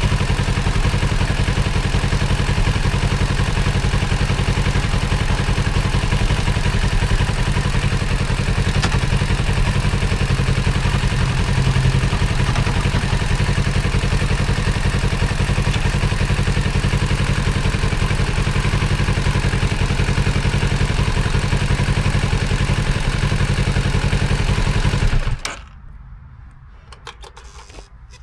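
Kawasaki Z650's parallel-twin engine running steadily in gear, driving the rear wheel and chain during chain cleaning and lubing. The engine is shut off suddenly a few seconds before the end, leaving only faint small sounds.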